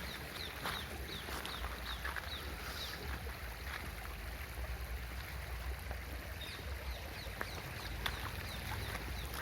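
Mahindra Scorpio S11 4x4 driving slowly over a rough, bumpy track: a low steady engine and road rumble with a few sharp knocks. Over it, a run of short, high, falling chirps repeats every half second or so.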